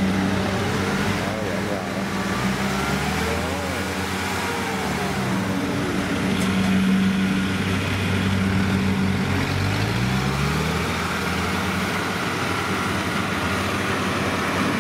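Kubota DC70 rice combine harvester's diesel engine running steadily with a strong hum; its pitch drops a few seconds in and climbs back up about two-thirds of the way through.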